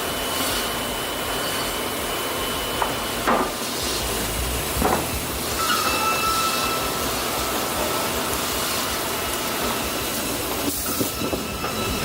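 Sawmill saw running through timber: a steady hissing machine noise with a faint high whine and a few short knocks.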